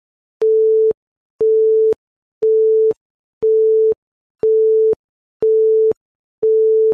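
Countdown beeps: a steady mid-pitched tone about half a second long, repeated once a second, seven times in all, each beep starting and stopping with a faint click. The countdown marks the pause for a listening ham station to give its station identification.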